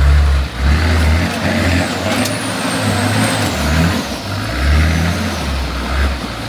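Off-road four-wheel-drive engine working hard under load on a steep, slippery track, with a deep rumble that swells and fades every second or so.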